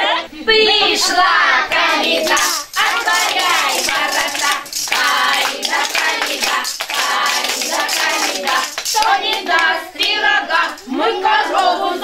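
Group of small children singing a folk carol together, with the sharp clacking of wooden spoons knocked together several times a second.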